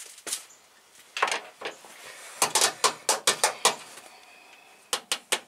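Irregular sharp clicks and knocks of things being handled: a few scattered ones, then a quick run of about eight in the middle, and three more near the end.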